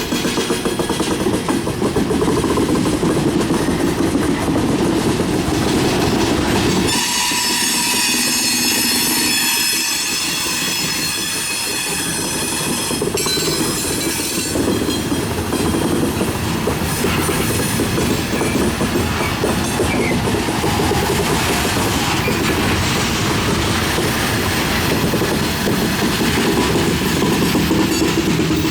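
Freight train cars rolling past on the rails, with a high steady wheel squeal for several seconds about a quarter of the way in.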